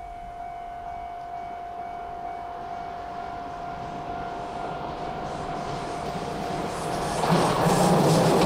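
DE10 diesel-hydraulic locomotive approaching on a curve, towing KiHa 47 railcars that cannot run under their own power. It grows steadily louder and passes close by with loud engine and wheel noise from about seven seconds in. A steady high tone is heard over the approach until then.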